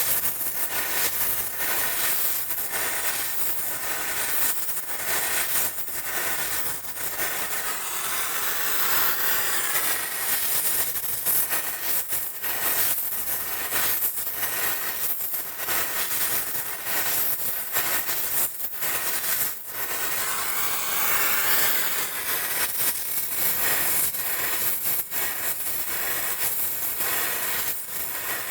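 Gas brazing torch flame hissing steadily on copper pipe joints, with frequent small crackles throughout.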